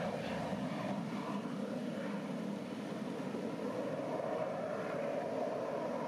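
Steady drone of aircraft engines at an airshow, dipping slightly in the middle and rising again.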